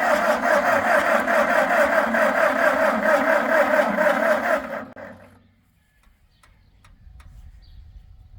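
Ford 650 tractor engine being cranked on its starter motor, turning over with a rhythmic pulse but not catching, then cut off about five seconds in. The engine is being turned over while its ignition timing is being set.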